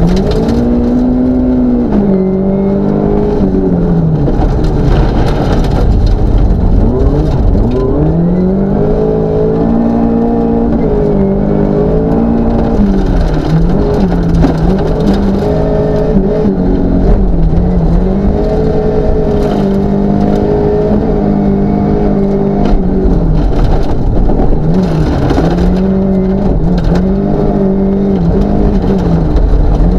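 Mercedes-Benz 190E 2.5-16V rally car's 16-valve four-cylinder engine heard from inside the cabin under full-throttle driving on a gravel stage. The revs climb and drop again and again with gear changes and lifts between corners.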